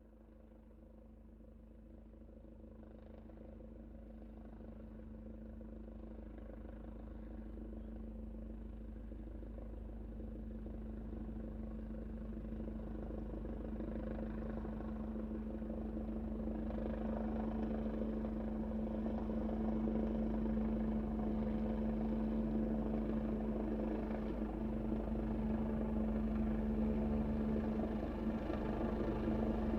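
Helicopter coming in to land, its steady engine and rotor drone growing louder throughout as it approaches.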